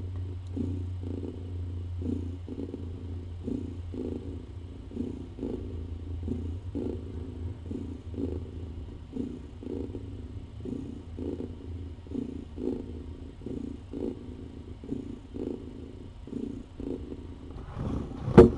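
Domestic cat purring steadily, the purr pulsing about twice a second. A single sharp click near the end.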